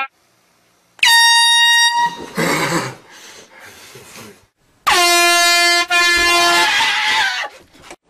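Two blasts from air horns: the first is high-pitched and about a second long, and the second is lower and lasts nearly two seconds. Each is followed by a noisier, yell-like outburst, and the sound cuts off abruptly near the end.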